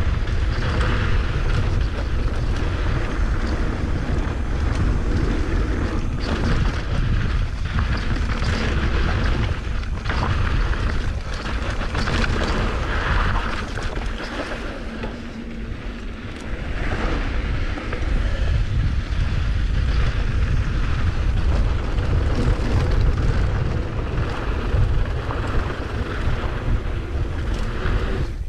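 Wind buffeting the microphone during a fast mountain-bike descent, with the tyres crunching over loose dirt and rock and the bike rattling over bumps on a rough, rocky trail. The rush eases briefly about halfway through.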